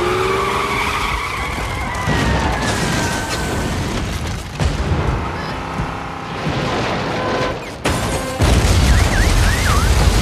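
Car skidding with tyres squealing, the squeal falling in pitch, then a heavy, deep rumble that breaks in suddenly about eight seconds in.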